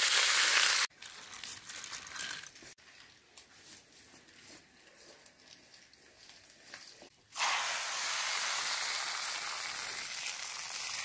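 Hot mustard-oil tempering of whole spices, dried red chillies, green chillies and ginger paste sizzling while stirred, cutting off suddenly just under a second in. After a quiet stretch with a few faint clicks, a steady sizzle returns about seven seconds in, as the hot tempering meets the cooked khichdi.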